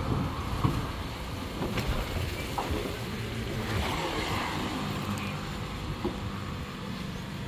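Road traffic passing: a steady low rumble of vehicles, with a few faint short knocks.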